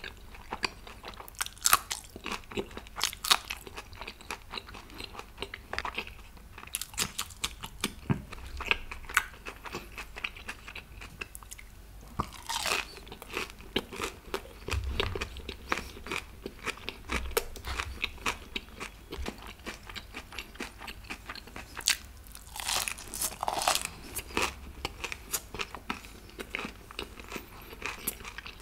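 A person eating close to the microphone: steady chewing and biting with many sharp, wet mouth clicks and crunches.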